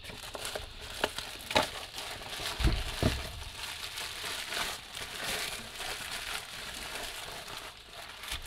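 Cardboard box and packaging handled, with a few sharp knocks and thuds in the first three seconds, then plastic bubble wrap crinkling steadily as it is pulled off a hand-held grip.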